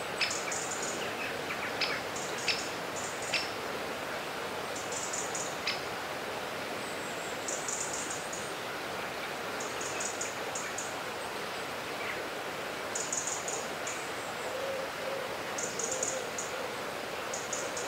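Birds chirping in short, very high bursts every few seconds over a steady outdoor hiss, with a faint low call near the end. A few light clicks in the first six seconds come from a small spoon tapping miniature steel cookware.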